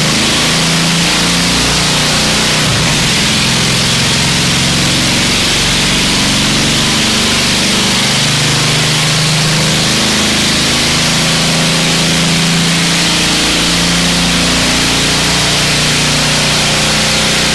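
Opposed-twin Briggs & Stratton engine of a racing lawn mower running loud and steady on a dyno, its pitch drifting up and down a little.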